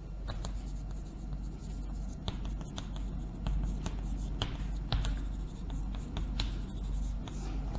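Chalk writing on a blackboard: a run of sharp taps and short scratching strokes as characters are written.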